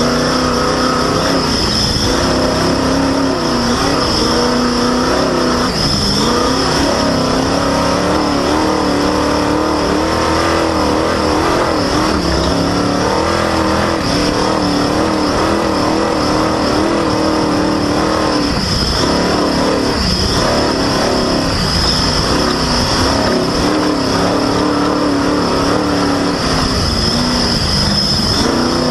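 Off-road race vehicle's engine running hard, its pitch rising and falling with the throttle, under a steady high-pitched squeal from a slipping drive belt. Rough rushing noise runs through it all, heard from the front bumper.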